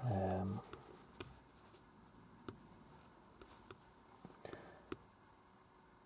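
A brief voice sound at the start, then a handful of faint, sparse clicks from a laptop being operated to run the diagnostic scan.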